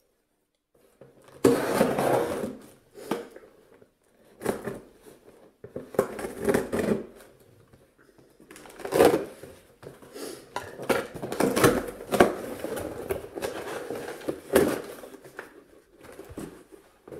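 Scissors slitting open a cardboard shipping box along its taped seam, then the cardboard flaps being pulled open and a boxed item lifted out: irregular bouts of scraping, tearing and rustling cardboard with a few sharp clicks, starting after about a second and a half.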